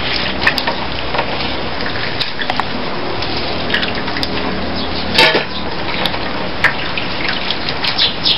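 Shredded banana heart being squeezed and kneaded by hand with salt in a metal tray: wet crackling and squishing as the bitter juice is worked out, with a louder crunch about five seconds in, over a steady hiss.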